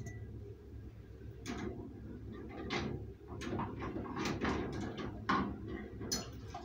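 Glass canning jars being lifted out of a water-bath canner of very hot water with a metal jar lifter: a string of clinks, knocks and splashes over a steady low rumble.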